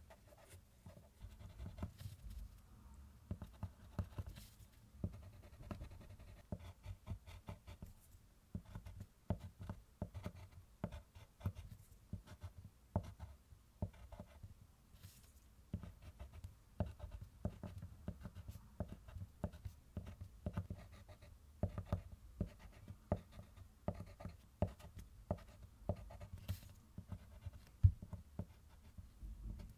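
Thick waxy Diamond colored pencil scratching across kraft paper in short, quick strokes, one after another, as flower petals are drawn, with one sharper tap near the end.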